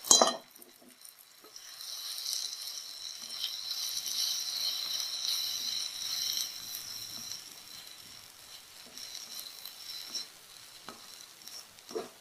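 Onion-tomato masala sizzling as it fries in a pan and is stirred, with a sharp knock of the spatula against the pan at the start. The sizzle swells for a few seconds, then dies down, with a couple of small knocks near the end.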